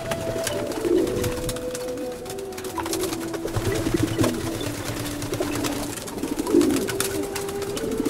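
Racing pigeons cooing, several low calls overlapping and shifting pitch, with scattered light clicks and taps throughout.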